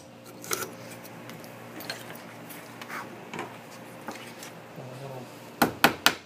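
Ball peen hammer lightly tapping the filed edge of a metal cabinet hinge on the vise's anvil, a quick run of about four sharp metal strikes near the end, putting hand-hammered marks back on the straight filed edge. Before it, faint clinks and knocks of tools being handled and the vise being loosened.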